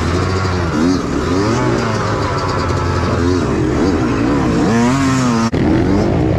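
Dirt bike engine revving up and down over and over as the rider works the bike up a rocky ledge. About five and a half seconds in the sound cuts off abruptly and switches to dirt bikes riding along in a group.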